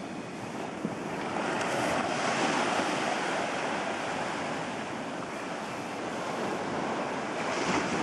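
Sea waves washing and wind buffeting the microphone: a steady rushing noise that swells a couple of seconds in.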